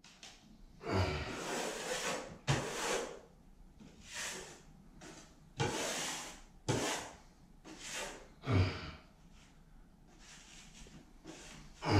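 A drywall taping knife drawn across wet joint compound on a ceiling in a series of scraping strokes, roughly one a second, each starting with a light tap as the blade meets the surface.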